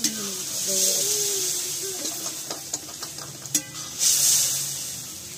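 Water poured from a steel bowl into a hot kadhai of frying fish masala, hissing loudly with steam in two surges, about half a second in and again, loudest, about four seconds in, with a few metal clinks between them.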